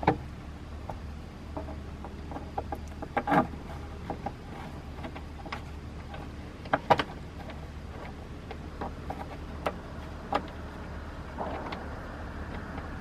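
Scattered light clicks and a few sharper knocks from handling a plywood tabletop and threading metal thumb screws into it, the two loudest knocks about three and seven seconds in. A steady low hum runs underneath, and a soft rushing noise comes up near the end.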